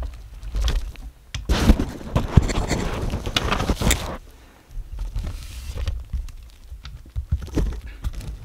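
Rustling and handling noise with a low rumble and scattered light clicks, and a louder stretch of rustling from about one and a half to four seconds in.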